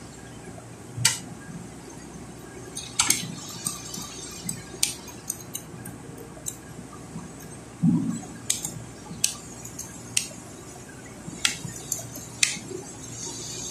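Irregular sharp clicks and clinks from an electric drill and hand tools being handled on a steel checker-plate floor, with a duller knock about eight seconds in.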